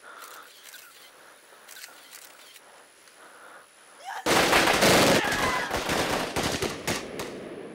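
A sudden volley of rapid automatic gunfire starts about halfway through, runs for nearly three seconds and then dies away.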